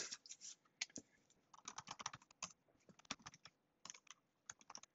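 Typing on a computer keyboard: quiet clusters of quick keystrokes separated by short pauses.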